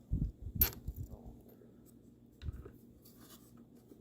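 Hand work fastening screws into a steering column's lower case: a few dull knocks near the start, a sharp click about half a second in, scattered small clicks, and another dull knock about two and a half seconds in.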